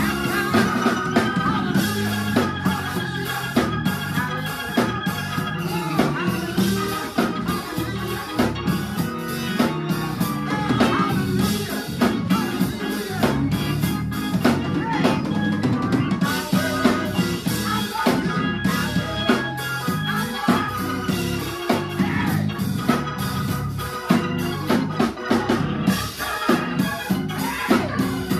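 Live gospel music: a drum kit driving a steady beat with snare, rimshot and bass drum hits, under held Hammond organ chords.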